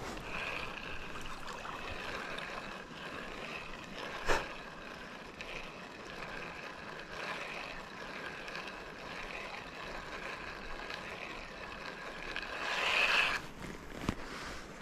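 River water running steadily, a continuous rushing. There is one sharp knock about four seconds in and a brief louder swell of the water sound near the end.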